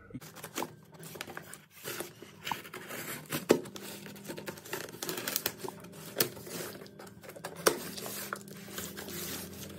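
Scissors cutting through plastic packing tape on a cardboard box, with irregular snips, crackling and tearing of the tape and cardboard, and a few sharper snaps standing out.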